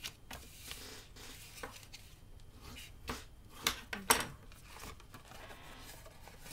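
Stiff cardstock being handled and folded on a tabletop: soft rustling and scraping of paper, with two sharp clicks close together about four seconds in.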